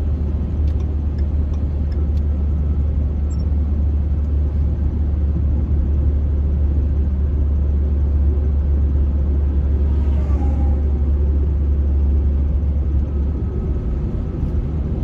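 Steady low rumble of a vehicle driving at road speed, engine and tyre noise heard from inside the cabin.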